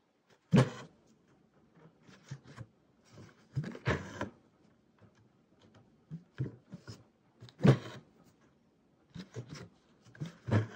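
Needle and embroidery thread drawn through cotton fabric stretched tight in a wooden embroidery hoop: several short rasping pulls a few seconds apart, with light ticks of the needle between them.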